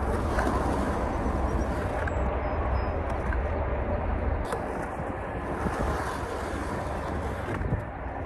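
Skateboard on hard 92A wheels rolling over concrete, with wind rumbling on the microphone. The low rumble eases about four and a half seconds in as the board rolls farther off.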